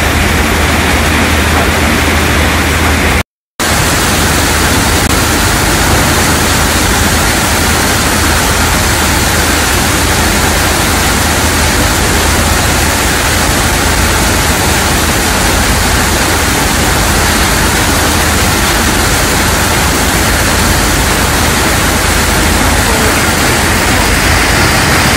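Loud, steady machinery noise from a sand-sludge filter press plant, a constant hiss with a low steady hum underneath, cutting out for a split second about three seconds in.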